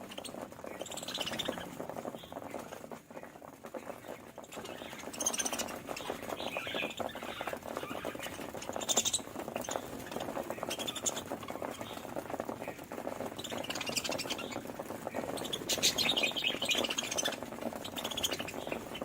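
Budgerigars chattering without pause, a fast warble of clicks, squeaks and short chirps with louder high chirps scattered through it: the chatter budgies make in courtship.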